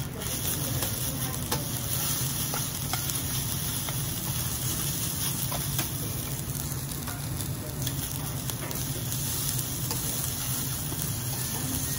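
Fried rice sizzling on a hot flat steel teppan griddle while two metal spatulas chop, spread and turn it, with light scrapes and taps of the spatula blades on the steel.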